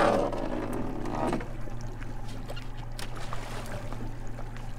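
Boat engine idling with a steady low hum while water sloshes alongside the hull. A louder splashy burst at the start dies away over the first second or so, and a few faint knocks follow.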